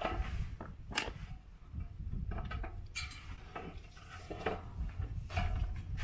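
Tin snips cutting thin painted sheet-metal trim, and the trim being bent and creased by hand: irregular light metallic clicks, snips and crinkles, over a low rumble.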